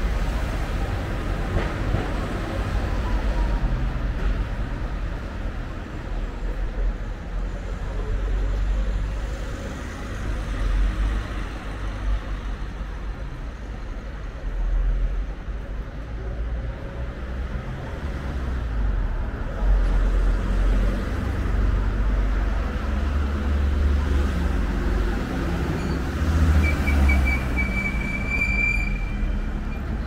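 Motor traffic on a city street: a steady low rumble that swells and fades as vehicles pass, with a short high-pitched squeal near the end.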